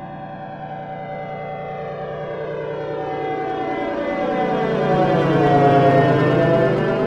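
Flyover sound effect: a droning, whistling source swells as it approaches, peaks about six seconds in, and starts to fade as it passes overhead. A sweeping phasing whoosh rides on the steady tones, falling and then rising again at the moment of passing.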